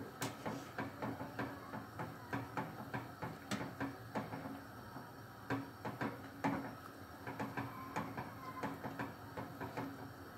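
A pot of boiling water on the hob with a wire spider skimmer being moved through it around a blanching yufka sheet: a steady run of small, irregular knocks and pops, a few a second, over a faint low hum.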